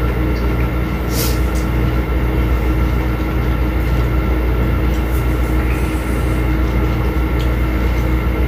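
Steady low mechanical hum and rumble with a few steady tones riding on it, running unchanged throughout, with a few faint clicks over it.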